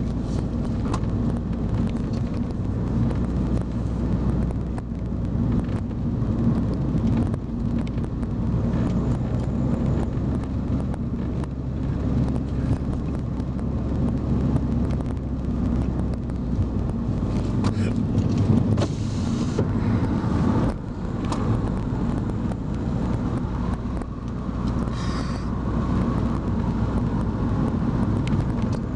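Car engine and road noise heard from inside the cabin while driving a winding road: a steady engine hum under tyre and wind rush, with the engine note changing about two-thirds of the way through.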